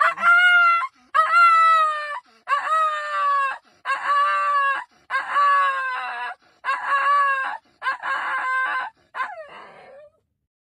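An animal calling about eight times in a row, each call about a second long, clear and pitched, sliding slightly down in pitch, with short pauses between.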